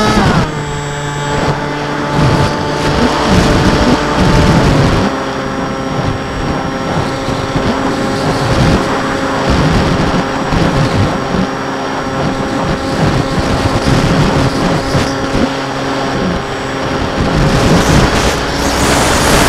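A model aircraft's motor and propeller heard from the onboard camera, with wind noise on the microphone. The motor's whine drops in pitch right at the start and again about five seconds in as the throttle comes back, holds steady, then picks up near the end.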